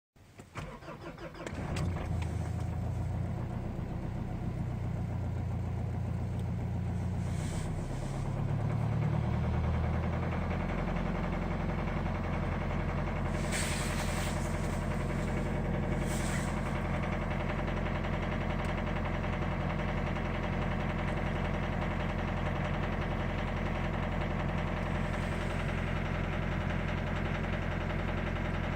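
Mitsubishi 4D56 four-cylinder diesel catching from a cold start, then running at idle with a steady knock. The knock is typical of this engine for its first few minutes when cold. The owner wonders whether it comes from an overflowing injector. The engine note shifts about eight to ten seconds in, then settles into an even idle.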